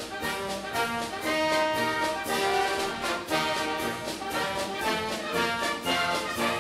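Orchestral background music led by brass, with sustained notes over a steady percussive beat.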